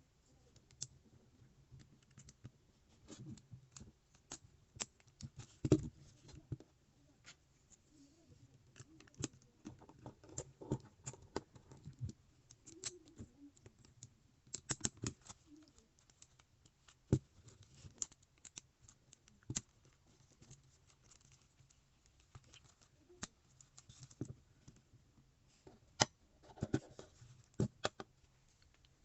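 Small plastic Lego Technic pieces clicking and tapping as they are handled and pressed together, in irregular sharp clicks with a few louder snaps.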